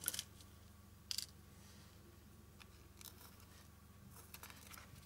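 Faint, scratchy rustles of fingertips smoothing satin ribbon down against a smoothfoam ball: a few short scrapes, the clearest about a second in and a small cluster near the end.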